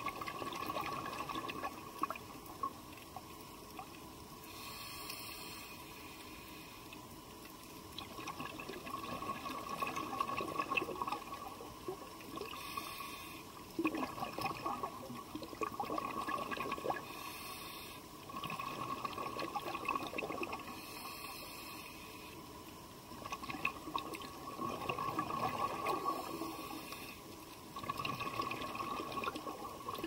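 Scuba diver's exhaled bubbles heard underwater: surges of bubbling about two to three seconds long, coming back every few seconds in a breathing rhythm, with quieter gaps between.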